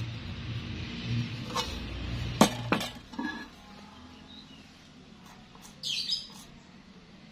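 Sharp metal clinks as a steel gate wheel and its bracket are knocked against a square steel tube, three of them in the first three seconds over a low hum that stops soon after. Near the end a marker pen scratches briefly as it draws lines on the steel tube.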